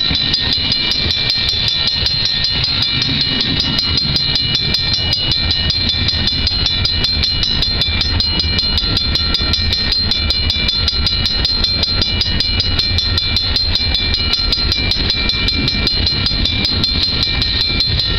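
Level-crossing warning bell ringing in rapid, steady strokes over the low rumble of a long freight train's cars rolling past.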